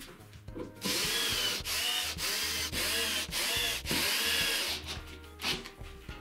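Cordless drill-driver driving screws into a pine board, in a string of short trigger bursts whose motor pitch rises and falls with each pull, starting about a second in and stopping near the end.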